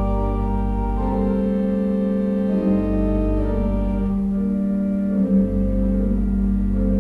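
Church organ playing: held chords that change every second or so over a low pedal bass, which drops out twice for about a second.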